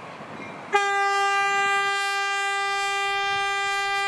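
A train horn blowing one long, steady note that starts abruptly under a second in, after a rushing noise.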